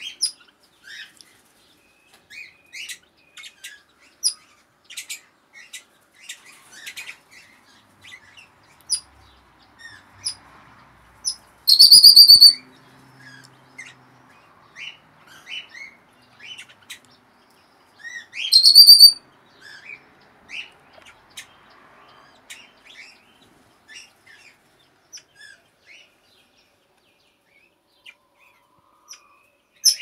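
Birds in a mixed aviary chirping in short, high notes throughout. Twice a much louder, harsh call about a second long cuts in, about twelve seconds in and again some seven seconds later.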